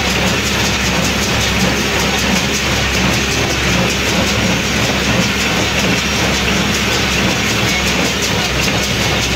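Welger AP 61 small square baler working in straw: a steady, fast, even mechanical clatter from its plunger and pickup, with the towing tractor's engine running underneath.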